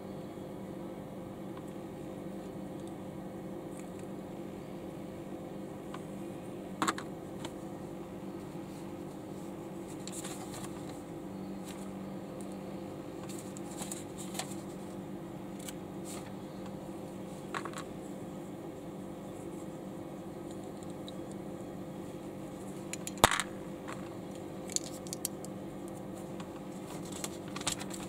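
Plastic LEGO bricks clicking and clattering as they are handled and pressed together: scattered sharp clicks, the loudest about 23 seconds in, over a steady low hum.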